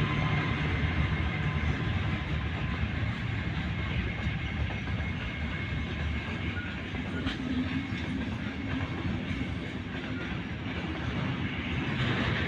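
Freight train hauled by a 2TE116 diesel locomotive rolling past, with a steady rumble of wagons and wheels clacking over rail joints, and a low diesel drone underneath.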